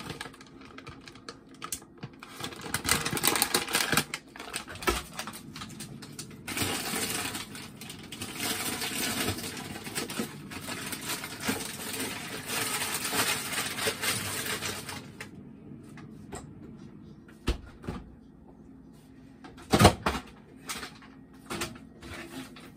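Kitchen handling noises: a plastic package rustling and crinkling, at times continuously. Later it goes quieter, with a few sharp clicks and knocks, the loudest about 20 seconds in.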